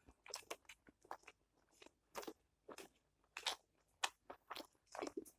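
Close-up chewing and crunching of food, a mouthful from a meal of spicy dried buffalo meat (sukuti), cabbage and rice: a quick, irregular run of short, crisp crunches.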